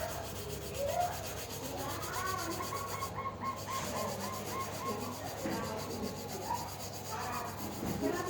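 Steady rubbing, as of hand sanding or filing on a hard surface. About two seconds in comes a quick run of about ten high, evenly spaced chirps.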